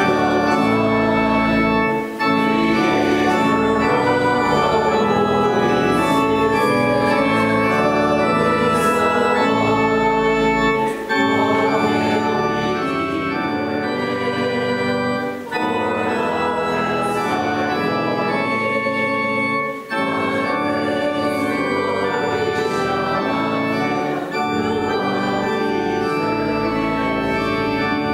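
Church organ playing held chords in slow phrases, with a few brief breaks between phrases.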